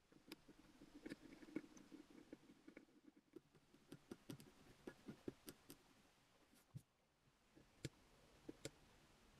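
Fine steel scribing needle scratching a drawing into the white coating on an axe blade, its tip ticking and scraping against the metal in faint, irregular small clicks.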